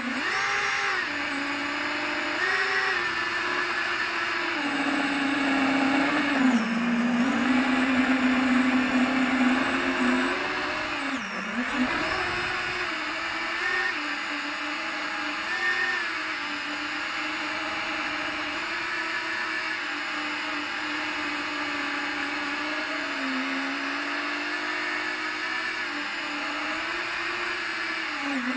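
FPV quadcopter's electric motors and propellers whining, the pitch rising and falling with the throttle, with a sharp brief drop about eleven and a half seconds in. Heard from the camera riding on the drone.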